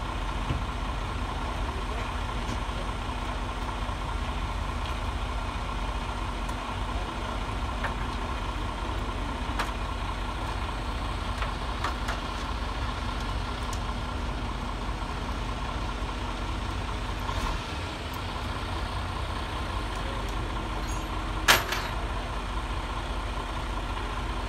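Heavy vehicle engine idling steadily, with a few faint ticks and one sharp knock about 21 seconds in, likely from steel crane parts being fitted.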